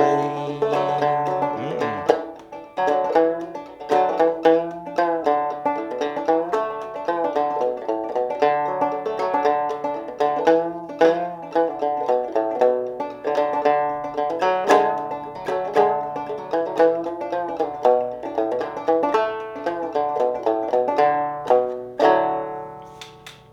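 Fretless banjo played clawhammer style, tuned very low, playing an instrumental run of picked notes. Near the end it closes on a final strum that rings out and fades.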